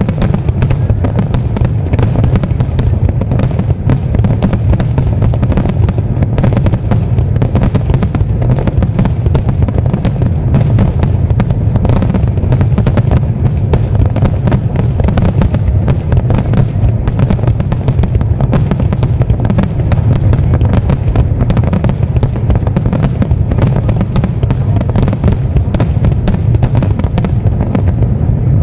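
Fireworks display: a loud, continuous barrage of shell bursts and crackle, the bangs so close together that they run into one another without a pause.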